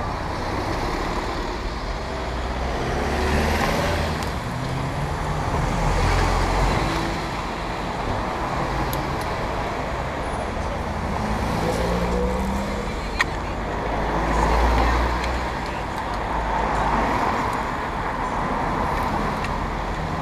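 Road traffic: cars driving past one after another, each swelling and fading over a couple of seconds, with engine hum gliding in pitch as they go by. A single sharp click about thirteen seconds in.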